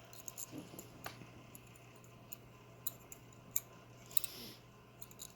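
Faint, scattered metallic clicks and taps of a disassembled Assa oval lock cylinder being handled and turned over for inspection, over a steady low hum.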